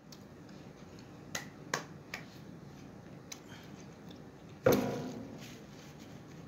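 A few light clicks of cutlery against a plate while eating, then a louder knock about five seconds in that dies away over a second.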